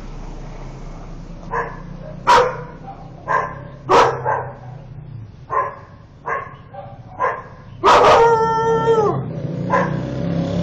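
A dog barking in short single barks about a second apart, with one longer, drawn-out, steady-pitched cry about eight seconds in.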